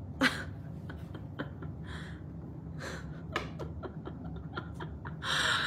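A few soft taps and short breathy sounds over a low steady room hum, with a louder breathy noise near the end.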